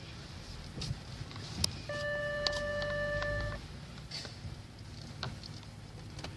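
Kia K7 parking-sensor warning sounding one steady, unbroken tone for about a second and a half, starting about two seconds in. The owner takes this passenger-side warning for a fault: it goes off after a person has walked past, not for a nearby wall.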